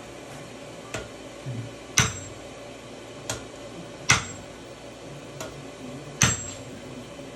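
Hand hammers striking hot iron on an anvil while forging a tomahawk head: six spaced blows, about one a second, every other blow louder with a short metallic ring.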